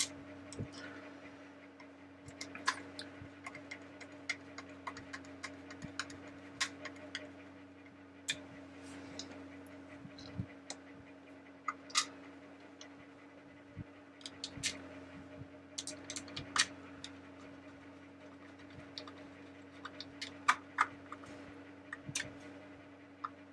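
Irregular small clicks and taps of hard plastic parts being handled and fitted on the underside of a Mr. Christmas animated teacup's base, over a steady low hum.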